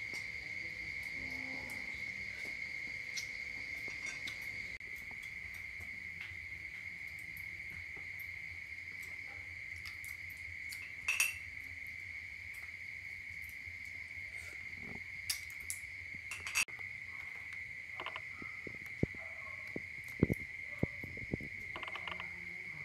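An insect trilling on one steady high note throughout. Over it come scattered short clicks and taps of cooked blood cockle shells being pried open by hand and set down, mostly in the second half.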